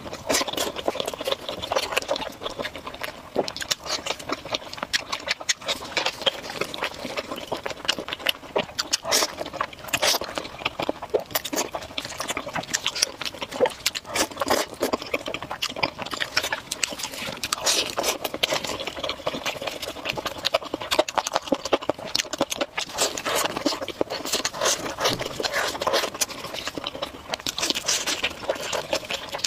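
Close-miked eating: wet chewing, smacking and slurping of saucy noodles and fried skewered meat, a dense run of irregular mouth clicks and squelches with no pause.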